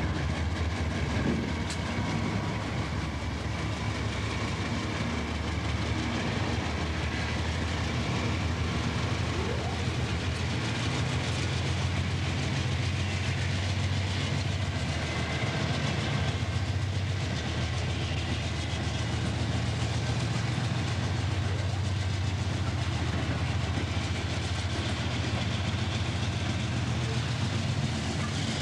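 GE diesel locomotives of a loaded Union Pacific coal train passing close by, their engines running with a steady low drone, then coal hopper cars rolling past with wheel clatter on the rails.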